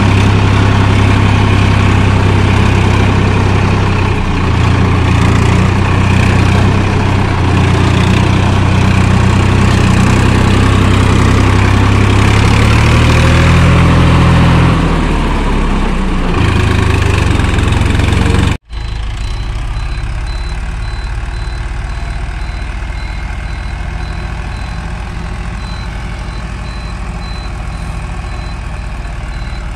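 Heavy diesel engines of earthmoving machinery running. The pitch rises for a few seconds partway through, as if under load. After a sudden cut about two-thirds of the way in, a quieter engine runs with a rapid, high-pitched repeating beep.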